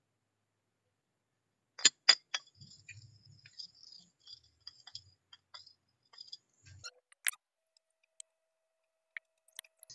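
Metal parts clicking and clinking together as they are handled: a steel tube, a wrench socket and a shock absorber body. Three sharp clicks about two seconds in, then a run of small irregular ticks and scrapes, and another sharp click past the seven-second mark.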